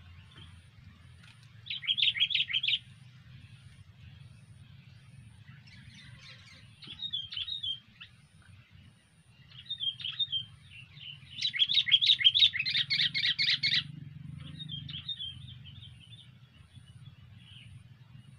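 Sooty-headed bulbul (kutilang) calling in several bursts of rapid chirping notes, the loudest and longest burst a little past the middle, lasting about two seconds. A faint low hum runs underneath.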